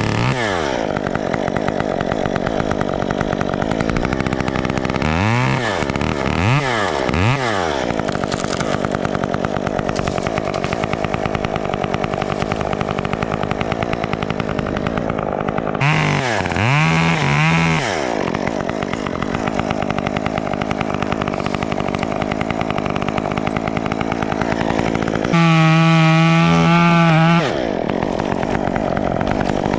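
Two-stroke top-handle chainsaw idling, revved in quick blips three times and then a few more times mid-way. Near the end it is held at full throttle for about two seconds before dropping back to idle.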